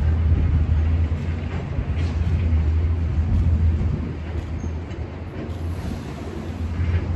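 Low rumble of wind buffeting the microphone, uneven and heaviest in the deep bass, easing somewhat in the second half.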